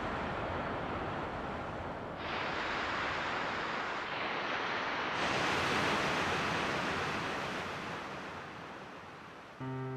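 A steady rushing hiss, like surf or wind noise, that brightens twice and fades over the last few seconds. Music starts just before the end.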